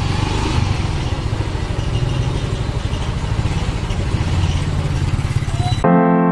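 Small motorcycle engine running, a rapid low pulsing under a steady rushing noise. About six seconds in it cuts off abruptly and electric piano music begins.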